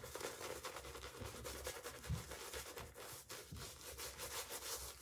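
Shaving brush working soap lather over the face: faint, rapid rubbing strokes of wet bristles on skin and stubble.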